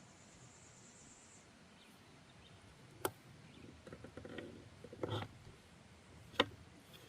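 Quiet outdoor background with a faint high, steady buzz for the first second and a half. Then two sharp clicks about three seconds apart, with a spell of rustling handling noise between them.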